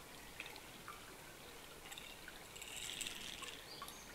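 Faint forest ambience: a soft trickling of water with a few small ticks, and short high bird calls beginning near the end.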